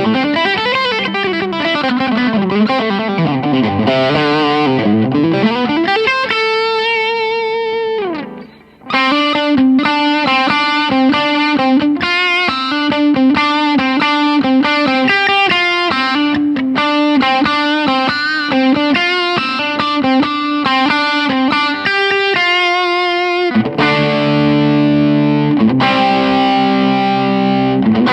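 Overdriven electric guitar from a Gibson Custom Shop '59 Les Paul Standard Reissue playing lead: fast runs, a held note with vibrato that slides down and stops about eight seconds in, a quick repeating lick, then strummed chords near the end.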